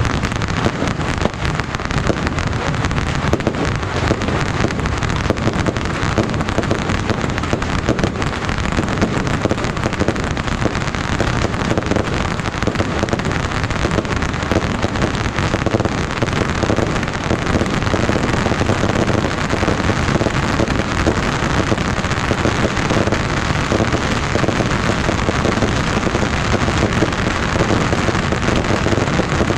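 A dense, unbroken crackling barrage of massed bottle rockets, the Yanshui beehive rockets, firing from a rocket fortress. Countless tiny pops and whizzes run together into a steady roar like heavy rain.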